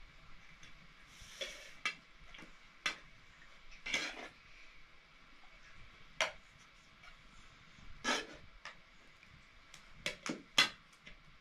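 A metal spoon clinking and scraping against a metal pan and plates as rice is dished out and eaten: single clinks every second or two, with a quick run of three near the end.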